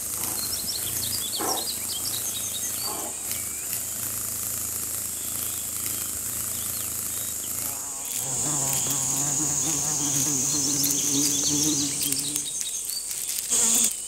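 Grassland insect ambience: a steady high drone with short high chirps. From about eight seconds in, a fly buzzes close by for several seconds on one steady pitch.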